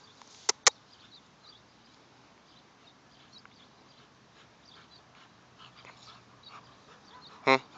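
Doberman Pinscher giving one short whimper near the end. Two sharp clicks come about half a second in.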